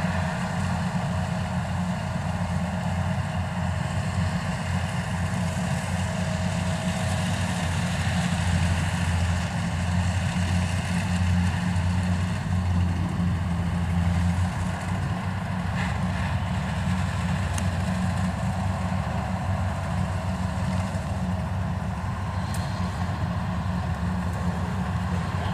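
Kubota rice combine harvester's diesel engine running steadily while cutting, a deep even hum; the pitch of the hum shifts a little just after halfway through.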